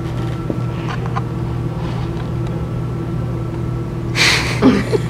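Steady low electrical hum of room tone, with a few faint ticks about a second in, then a short breathy laugh near the end.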